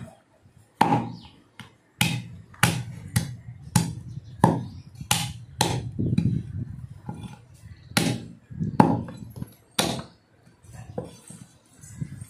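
A butcher's cleaver chopping goat meat and bone on a chopping block: about ten hard, sharp chops at uneven intervals, with a short pause in the middle.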